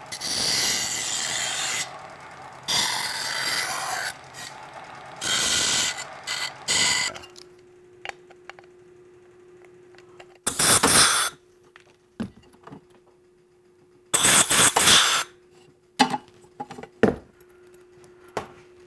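Workshop hand-tool sounds: three long bursts of harsh noise in the first seven seconds, then metal clicks and clinks from hand work, with two more short loud bursts of noise in between. A faint steady hum starts about seven seconds in.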